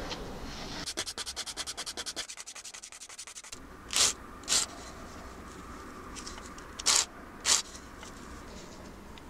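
Hand sanding of a resin-and-wood ring blank with sandpaper. A quick run of short rasping strokes, about ten a second, is followed by two pairs of louder, longer strokes.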